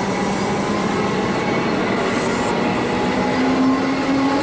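Comeng electric suburban train pulling out and rolling past close by: a steady rumble of wheels on rail, with a motor tone rising in pitch over the second half as it picks up speed.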